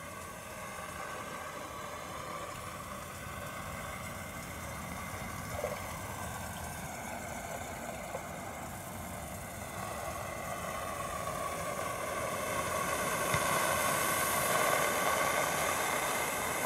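Water and food colouring at a rolling boil in a glass distillation flask: a steady rushing, bubbling hum that grows louder over the last several seconds.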